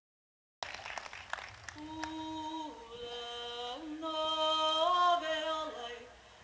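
Unaccompanied Hawaiian chant for a hula kahiko: one voice singing long held notes that step up and down in pitch. The sound cuts in about half a second in.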